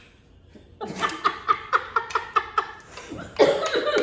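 A person laughing: a quick run of rhythmic 'ha-ha' pulses, about four a second, starting about a second in, then a louder burst of laughter near the end.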